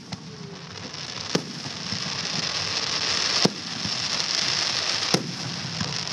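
Aerial fireworks display: about four sharp bangs of shells bursting, the loudest near the middle, over a dense, steady hiss of crackling, glittering stars that builds from about a second in.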